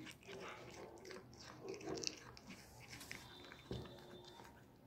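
A cat chewing a hand-fed mouthful of meat: faint, irregular small clicks and smacks of its jaws.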